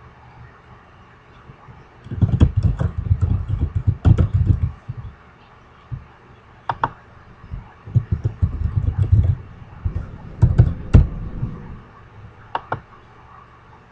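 Typing on a computer keyboard in two quick runs, the first starting about two seconds in and the second about eight seconds in, with a few single clicks between them and near the end.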